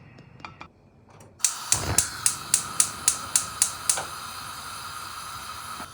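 Gas burner lighting: a rush of gas, then its igniter clicking evenly about four times a second for a couple of seconds. The clicks stop, leaving a steady hiss of gas or flame.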